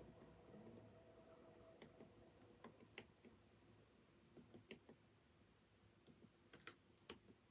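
Faint, sparse computer keyboard keystrokes: irregular single clicks and short groups of clicks.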